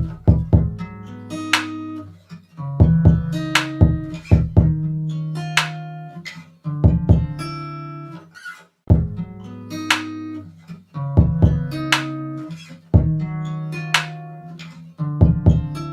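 Background music: plucked guitar over a bass line with a repeating beat, the same short phrase looping about every two seconds.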